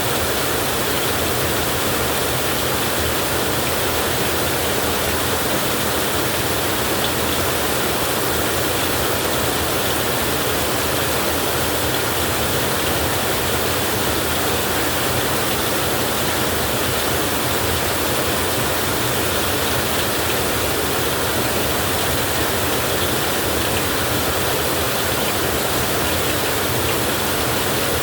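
Heavy rain falling, a steady, even rush of noise.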